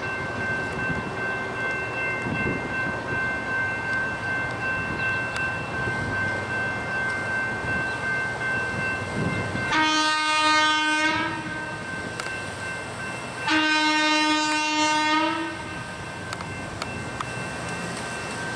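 Union Pacific hi-rail truck, a Chevrolet pickup running on rail guide wheels, sounding its horn in two long blasts on one low, reedy note, each about a second and a half, the second coming about two seconds after the first. Steady running noise and a thin high tone lie underneath.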